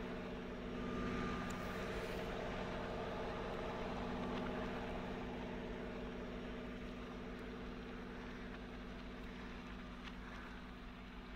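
Diesel locomotive engines of a Union Pacific rotary snowplow train running with a steady engine hum, gradually fading over the last several seconds as the train moves away.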